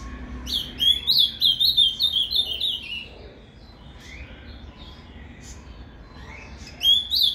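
Male ultramarine grosbeak (azulão) singing the Paraná song type: a quick run of short whistled notes that steps down in pitch, starting about half a second in and lasting about two and a half seconds. A second phrase begins near the end.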